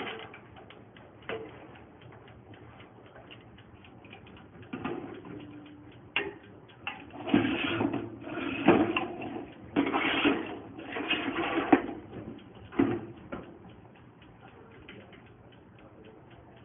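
The ETO236 toaster oven's 15-minute dial timer ticking steadily, several ticks a second. About seven to twelve seconds in, a few louder noisy sounds of about a second each come over it.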